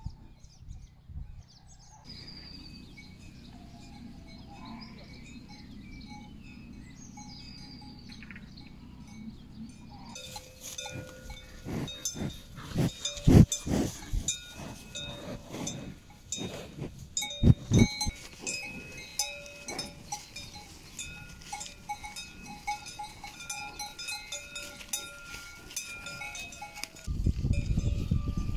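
Cowbells on grazing cattle clanking and ringing irregularly, setting in about a third of the way through, with a few sharp clangs loudest in the middle. Before the bells, faint bird chirps over a low rumble.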